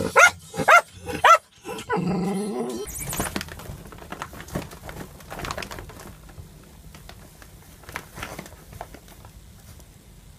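A dog barking and whining in short, high, rising-and-falling yelps, about five of them in the first second and a half. After that there are only faint rustles and taps at a much lower level.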